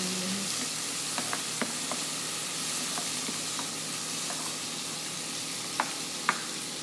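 Chopped tomatoes and whole spices sizzling in hot oil in a nonstick frying pan, stirred with a spatula that scrapes and taps the pan now and then. Two sharper taps come near the end.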